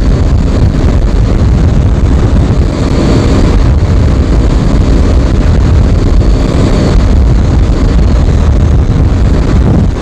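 Heavy wind buffeting on the microphone of a motorcycle at about 105 km/h, with the engine running steadily at high revs beneath it.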